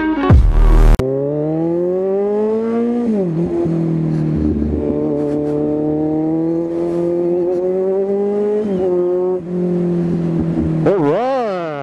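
Music ends about a second in. Then a Kawasaki Z1000's inline-four engine pulls up through the gears, its pitch rising steadily, falling sharply at each gear change, and rising again. A quick rev blip up and down comes near the end.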